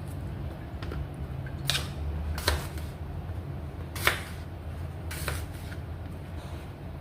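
About four short, sharp knocks and clicks of a cooking pot and utensils being handled, over a steady low hum.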